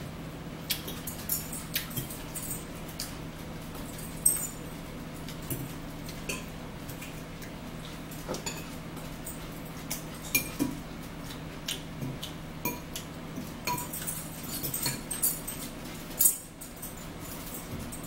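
Forks clinking and scraping against bowls and plates during a meal: irregular small clicks, with a few sharper clinks about 4 s and 16 s in, over a steady low hum.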